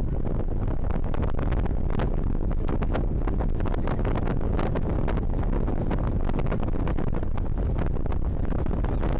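Strong wind of over 22 knots buffeting the microphone aboard a sailing yacht, a loud steady rumble with water rushing past and frequent short crackles throughout.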